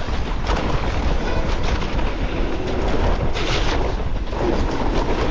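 Wind buffeting the microphone over the rattle and crunch of mountain bike tyres rolling down a wet gravel trail, with a brief louder hiss about three and a half seconds in.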